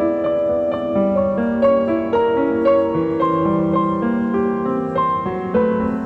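Background music: a piano playing a slow melody of single notes over held chords.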